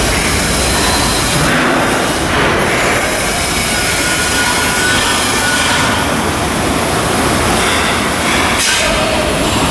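Loud, steady industrial din from shipbuilding work, a dense rushing noise with faint high squealing tones running through it.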